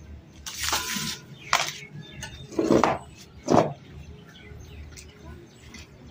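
Short handling noises: steel plates scraped and set down on a concrete floor and dry kindling handled, a few quick scrapes and clatters in the first four seconds, the loudest near the end of them. Birds chirp faintly in the background.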